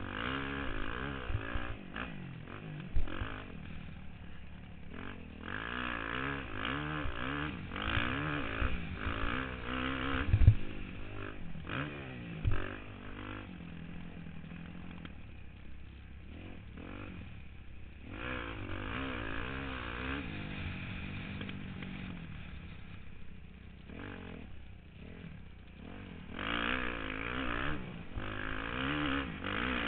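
Dirt bike engine revving up and down as it rides a motocross track, heard from a helmet-mounted camera. A few sharp thumps cut through it, the loudest about ten seconds in.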